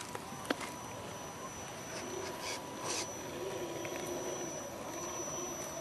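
RC scale crawler truck's electric drivetrain whining as it crawls over moss: a steady high whine with a lower, wavering drone under it. A few short rustles about two and a half and three seconds in.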